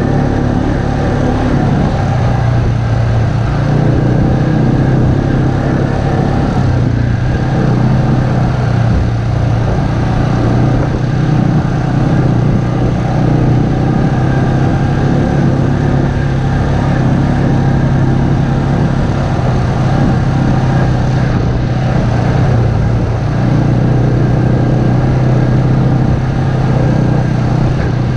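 ATV engine running steadily at cruising speed while riding along a dirt trail, with road noise over it.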